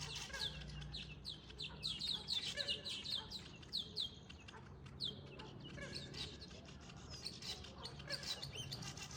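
Many small birds chattering around their nests: quick, dense runs of high downward-sweeping chirps from several birds at once, thickest in the first few seconds, over a faint low hum.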